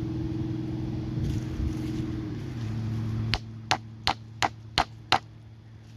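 Six sharp chopping strikes on wood in quick succession, about three a second, in the second half. Under them runs a steady engine hum that drops in pitch about two and a half seconds in.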